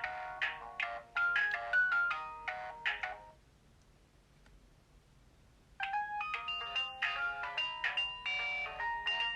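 Alcatel OT 735 mobile phone playing its built-in ringtones: a quick electronic melody of short notes, several sounding at once, stops about three seconds in. After a pause of a couple of seconds another ringtone melody starts.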